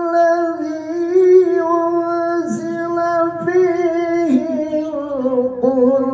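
A man reciting the Quran in Arabic in a melodious, sung style (tilawah), holding long wavering notes on one pitch, then stepping lower in the last couple of seconds.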